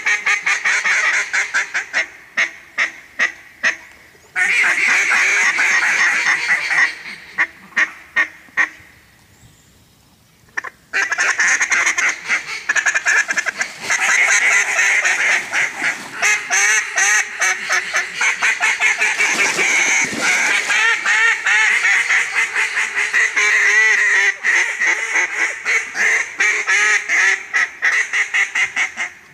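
Mallard duck calls blown by hunters: strings of loud quacks and dense, rapid cutting chatter from several calls at once. The calling stops for about two seconds around ten seconds in, then runs on almost without a break.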